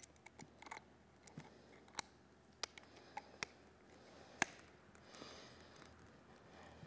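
Scattered small clicks and ticks of pliers working a spring hose clamp onto a rubber air hose, with the sharpest click a little past halfway.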